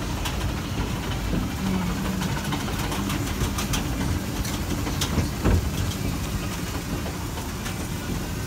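Escalator running: a steady low rumble and hum from the moving steps and drive. A single short knock a little past halfway.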